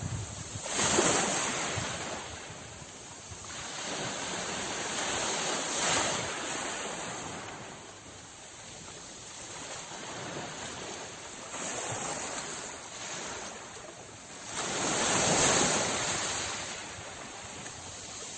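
Sea waves washing onto the shore, swelling and falling back every few seconds; the biggest surge comes about three-quarters of the way through.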